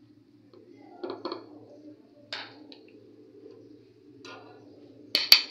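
Metal spoon spreading garlic mayonnaise paste on a paratha on a plate: a few soft scrapes and taps, then two sharp clinks close together near the end.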